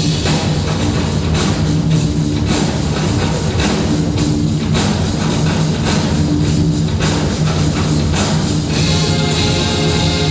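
Loud rock music driven by drums: a drum kit and percussion beating a steady rhythm under guitar.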